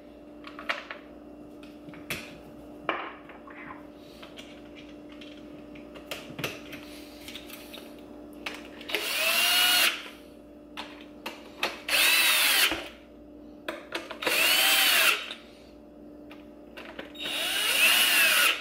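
Power drill-driver running in four T25 Torx screws to fasten the shifter assembly into the plastic center console. There are four short bursts of about a second each, a few seconds apart, the motor's pitch rising and falling within each, with light clicks of handling between them.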